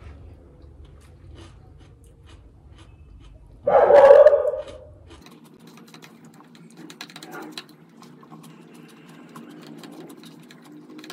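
A pet dog gives one loud whining call lasting about a second and a half, about four seconds in. Soft clicks and rustles of someone eating by hand run underneath, and a low steady hum cuts off shortly after the call.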